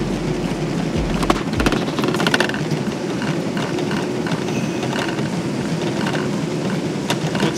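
Treadmill running at 12 mph under a sprinting runner: a steady whir from the belt and motor, with his footfalls striking the deck.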